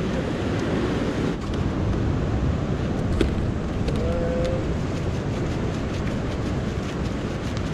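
Steady wind buffeting the microphone over the rush of surf breaking below the pier, with a couple of faint clicks and a brief faint tone about four seconds in.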